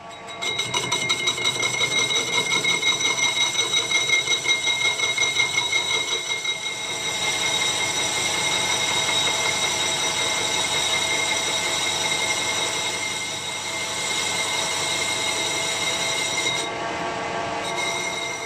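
Metal lathe spinning up and facing the side of a model traction engine's final drive gear ring to thickness, the tool cutting with a steady high whine. The sound pulses about three times a second for the first six seconds, then runs smoother, and the highest part of the whine drops away near the end.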